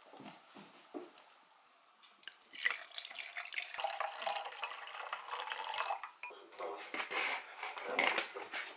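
Rosé wine poured from a bottle into a glass with ice, a steady splashing pour from about two seconds in until about six seconds, followed by light clinks and knocks.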